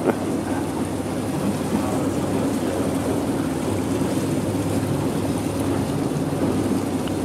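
Boat motor running steadily under way, with a hissing wash of water along the hull.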